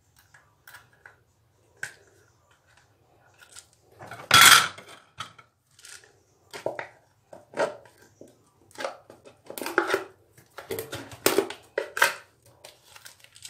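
A jar of chocolate curls being handled and tipped out by hand: scattered clicks, taps and rustles, with one louder knock about four seconds in.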